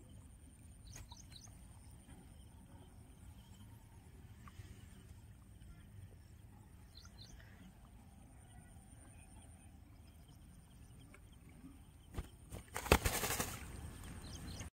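Low outdoor rumble with a few faint bird chirps. About twelve seconds in come a few sharp knocks, then a short loud burst of rustling and thumping as the caught rohu is laid down in the grass.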